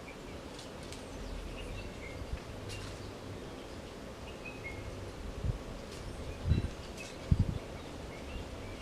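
A small bird repeating short, falling chirps every second or two over steady outdoor background noise. Three dull low thumps come in the second half and are the loudest sounds.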